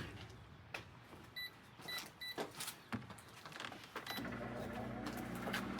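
Microwave oven control panel beeping several times as its buttons are pressed, with a few clicks, then the microwave starts running about four seconds in with a steady hum.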